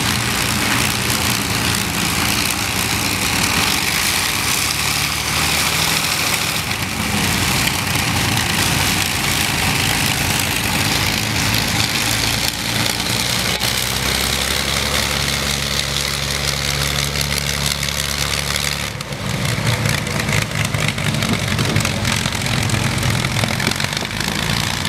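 Avro Lancaster bomber's four Merlin V12 piston engines running, with propeller wash hissing, as the aircraft taxis on grass. The engine note deepens and strengthens about fourteen seconds in, then changes again to a rougher, gustier sound near nineteen seconds as the bomber turns away.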